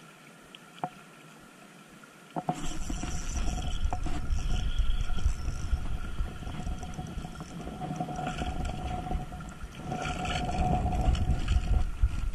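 Wind buffeting the camera's microphone, a loud low rumble that starts suddenly about two seconds in and swells and eases, with a faint whine coming and going beneath it.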